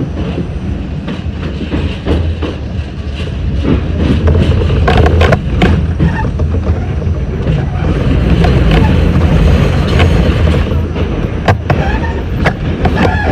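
R68 subway car running at speed: a loud, steady low rumble of wheels on the rails with repeated sharp clacks, getting louder from about four seconds in.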